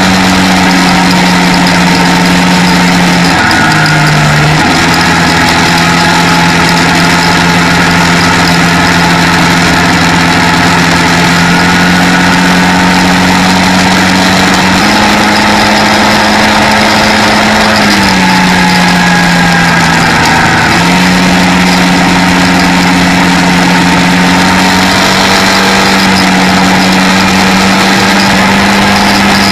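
Quad (ATV) engine running at a steady cruise, one droning pitch that dips briefly about three and a half seconds in, rises slightly around fifteen seconds and dips again for a few seconds from about eighteen seconds as the throttle changes, with a rush of wind and road noise over the microphone.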